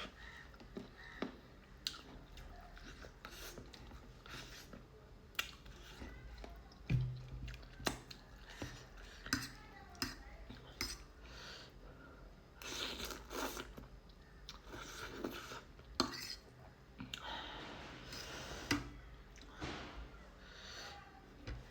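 A person chewing a mouthful of spicy noodles with corn, with frequent short clicks of a utensil against the dish.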